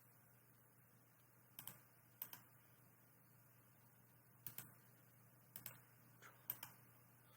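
Faint computer clicks, in quick pairs about five times, with near silence between them.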